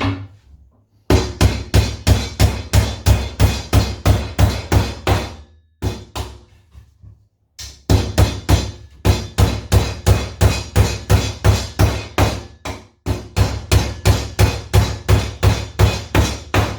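Hammer driving nails into the joints of a wooden Commercial beehive super: three long runs of quick, even blows, about four a second, with short pauses between.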